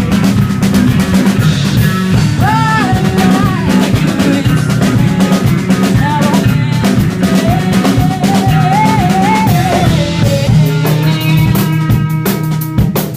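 A live band playing with a drum kit keeping a steady beat over a heavy low end. A wavering melodic line, voice or lead instrument, runs over it through the first part and drops out near the end.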